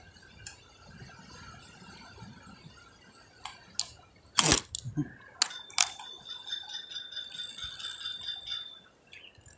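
Fishing rod and reel being handled: a run of sharp clicks and knocks about halfway through, then the reel winding with a steady high whir for about three seconds.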